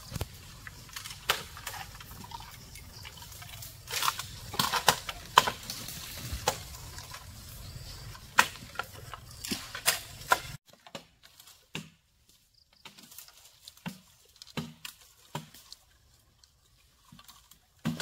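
Irregular sharp clicks and knocks over a steady low background. About ten and a half seconds in the background drops away, leaving fainter scattered knocks.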